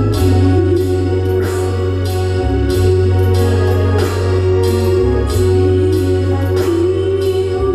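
Loud music played through a large PA sound system, with a heavy bass line, a wavering melody line and repeated crisp cymbal-like hits.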